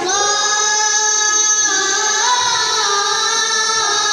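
A child's high voice chanting a melismatic Islamic vocal line, holding long notes and stepping from one pitch to another.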